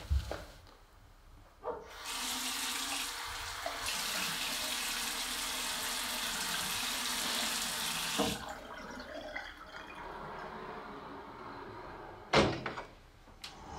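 Tap water running into a bathroom sink: a steady rush that starts about two seconds in and drops to a quieter flow about eight seconds in. Two short knocks near the end.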